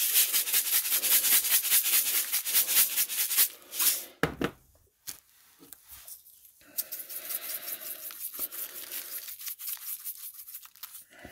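Hand-twisted spice grinder grinding salt and pepper onto raw chicken: a rapid, rasping rattle for about four seconds, a single knock, then after a pause a second spell of grinding.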